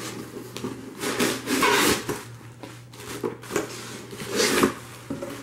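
Cardboard shipping box being opened by hand: the lid and flaps scrape and rub as they are pulled open, in irregular bursts, loudest about a second in and again near the end, with packing paper rustling.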